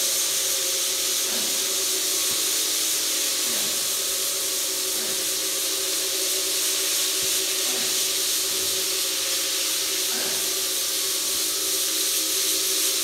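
Rented 17-inch floor buffer running with a 40-grit sandpaper head on polished concrete: a steady motor hum under an even hiss.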